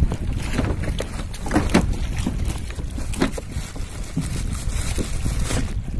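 Wind rumbling on the microphone aboard a small fishing boat, with irregular knocks and rattles from the longline and gear being handled over the side.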